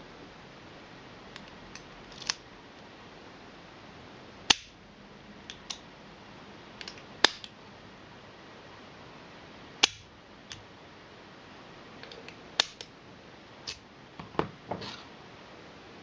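Sharp metallic clicks and clacks from a brass padlock, its key and the picks being handled: about a dozen irregular clicks, a few of them much louder than the rest.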